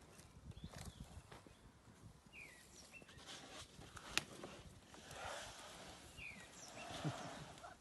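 Faint footsteps and rustling of an African elephant moving over dry, burnt grass and twigs close by, with a single sharp click about four seconds in. Short chirps, likely from a bird, sound twice in the background.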